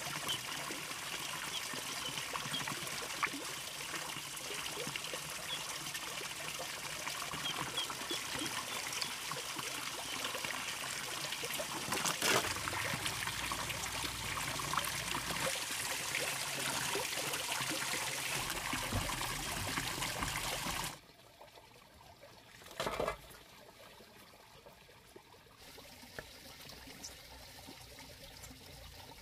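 Water trickling and splashing. About two-thirds of the way through it drops abruptly to a much fainter trickle, and a brief knock follows about two seconds later.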